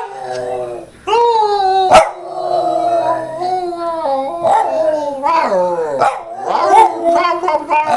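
Boston terrier howling, the "singing" of a dog: one long drawn-out howl held on a fairly steady pitch, then a run of shorter howls that rise and fall. A single sharp click about two seconds in.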